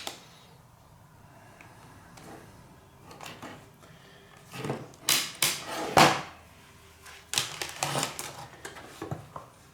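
Handling noise on a workbench: a series of sharp knocks and clicks, in two clusters after a quiet start, the loudest about six seconds in, as a multimeter and its test leads are picked up and set up to measure the power supply's output voltage.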